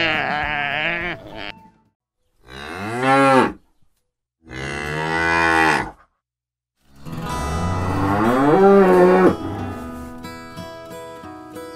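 Cattle mooing: three long moos of one to two seconds each, with short silences between them.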